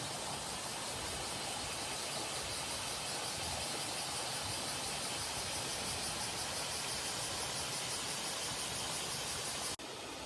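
Steady rushing of water from the Minoo waterfall or the river beside its trail, with summer cicadas buzzing in a high, evenly pulsing drone. Near the end the sound drops suddenly at a cut and continues a little quieter.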